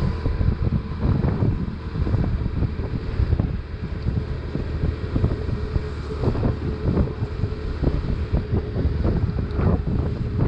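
Wind buffeting the microphone in irregular gusts over the steady low running of a BMW R1150RT's flat-twin boxer engine, with tyre spray hissing off the wet road.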